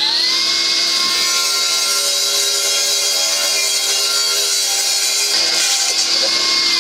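Hilti Nuron 22 V battery cut-off saw running at full speed as its blade cuts through a concrete block: a loud, steady high whine with a gritty cutting noise, wavering slightly about two-thirds of the way through.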